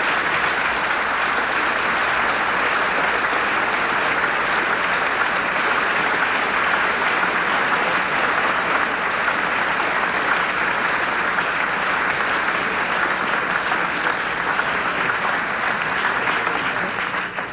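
A large audience applauding, a dense, steady clapping that holds for the whole stretch and dies away at the very end.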